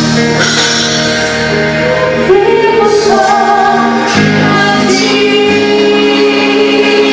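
Live gospel worship band playing, with a female voice singing over the instruments.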